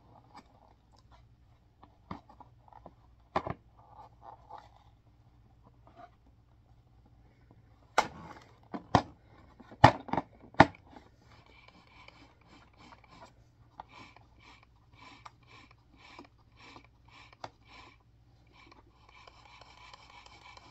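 Hard plastic parts of an upright vacuum cleaner's base being handled: scattered clicks, with four sharp knocks about eight to ten seconds in, then a run of light clicks about two a second.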